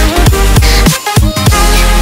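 Background electronic dance music with a heavy bass beat, about three deep kicks a second, and a brief drop-out about halfway through.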